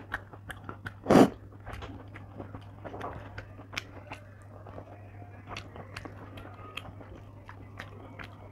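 Close-miked chewing of soft young flat beans in poppy-seed paste, with many small wet mouth clicks and one much louder noise about a second in.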